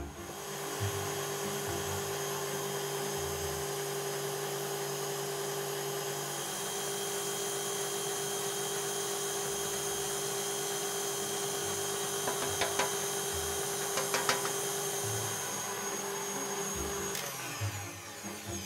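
Electric stand mixer running steadily with its whisk, beating egg batter while flour is added. Its tone shifts slightly about six seconds in, there are a few light clicks in the second half, and the motor stops about a second and a half before the end.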